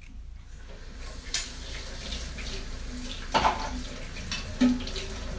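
Water running steadily as from a tap, with a few short clinks of dishes.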